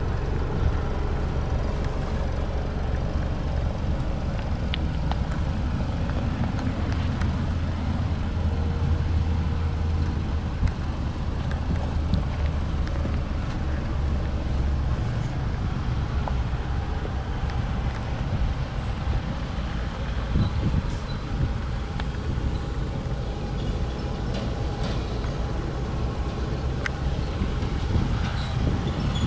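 Mitsubishi ASX 1.8 MIVEC inline-four petrol engine idling, a steady low hum. The hum's lowest note changes about halfway through.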